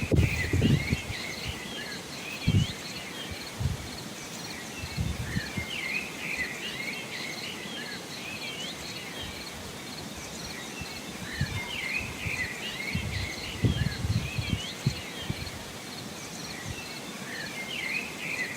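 Small birds chirping in repeated bursts of short, quick notes over a faint outdoor background, with short low thumps scattered through.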